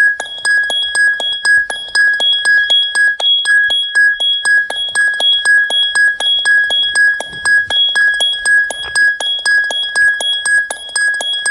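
A ringtone: a high, glassy ding on one steady pitch, repeated about twice a second, with quick clicks between the dings.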